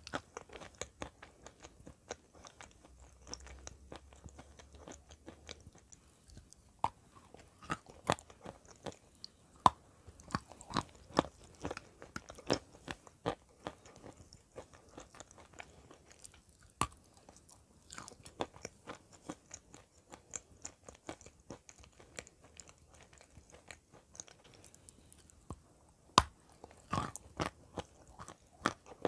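Close-up crunching and chewing of dry, chalky clay chunks in the mouth: a steady run of sharp crackles, with a few louder crunching bites, the sharpest near the end.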